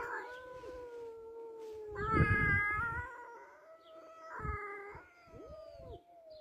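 Cat yowling: a long, drawn-out cry that slowly falls in pitch, with louder, higher-pitched cries about two seconds in and again about four and a half seconds in.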